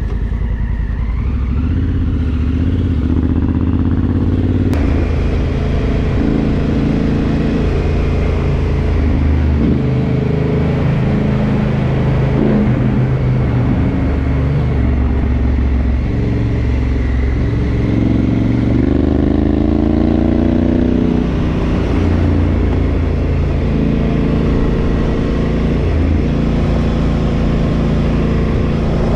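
Adventure motorcycle engine running under way on gravel, its pitch rising and falling with the throttle, with one long rev-up about two-thirds through and a drop after it. Wind and road rush on the camera's microphone grows suddenly louder about five seconds in.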